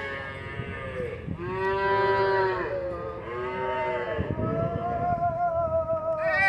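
Cattle mooing: several long, drawn-out calls one after another.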